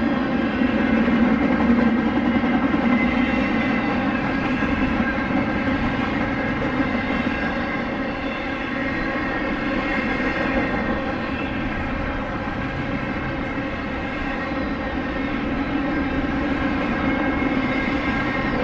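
BNSF freight train passing: a steady, loud drone of many even tones, swelling a little about two seconds in.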